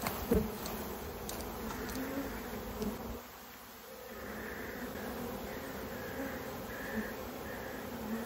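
Swarm of honey bees buzzing around an opened hive, a steady hum that dips briefly a few seconds in. A short knock comes near the start.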